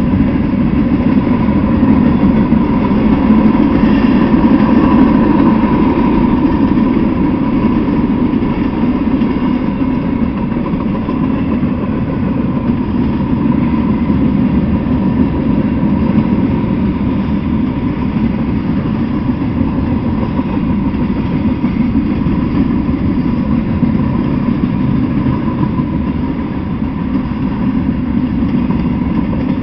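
Freight cars rolling steadily past, a continuous rumble of steel wheels on rail.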